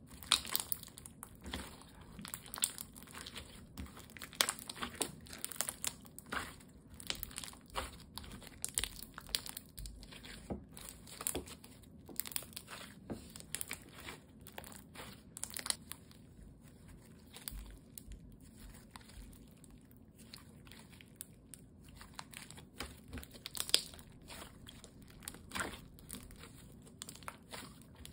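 Thick light-blue slime being kneaded, squeezed and stretched by hand, giving a continuous run of irregular sticky crackling clicks and small pops, a few of them sharper than the rest.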